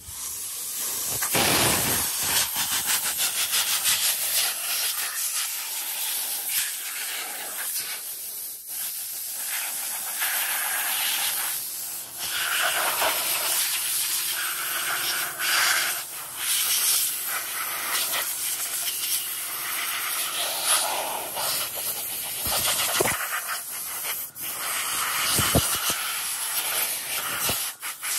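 Compressed-air blow gun hissing as it blasts dirt and carbon off an old Husqvarna two-stroke chainsaw's body. The hiss starts abruptly, swells and falls as the nozzle moves, and breaks off briefly a few times.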